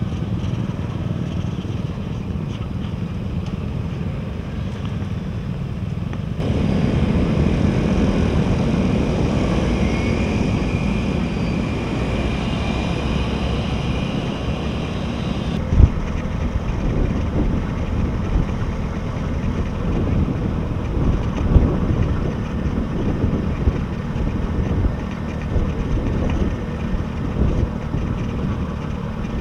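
Yamaha Taurus motorbike's engine and the surrounding motorbike traffic, a steady rumble; about six seconds in it grows louder and fuller as the bike pulls away, and a few sharp knocks stand out later on.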